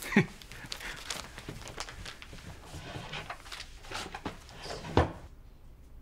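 Paper banknotes and cashier's cheques being handled and flicked through: a run of soft rustles and small clicks, with a sharper thump about five seconds in.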